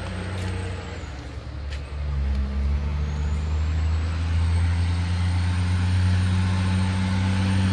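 Kenworth semi truck's diesel engine working hard up a steep climb, a steady low drone that grows louder from about two seconds in as the truck approaches. A faint high whine rises in pitch over the second half.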